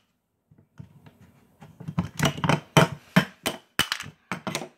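Duplo bricks knocking and clacking on a hollow plastic toy-bin lid as a brick figure is hopped along it: a run of quick, irregular knocks starting about half a second in.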